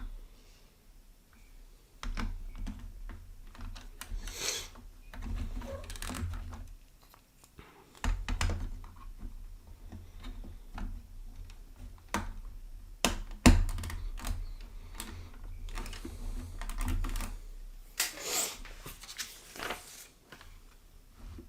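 Small plastic Lego pieces clicking and clattering as they are handled, picked through and pressed together, with a longer rustle of pieces being sorted about eighteen seconds in.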